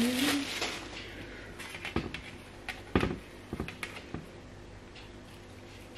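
Plastic wrapper crinkling as it is pulled off a pizza base, fading within the first half second, then a few light knocks and taps as the base is set down and shifted on a metal baking tray.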